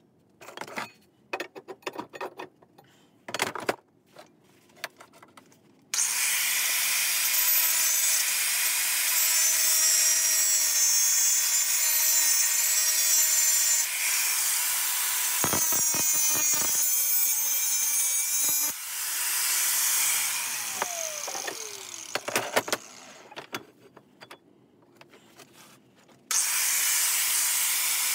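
Angle grinder cutting into steel clamped in a bench vise. Several seconds of knocks and handling clatter come first, then the grinder runs and cuts steadily for about twelve seconds, shuts off with a falling whine, a few more knocks follow, and it starts cutting again near the end.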